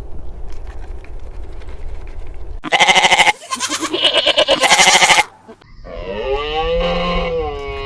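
Sheep bleating: two loud, quavering bleats a few seconds in, then one long bleat that rises and falls near the end, after a stretch of low rumbling background noise.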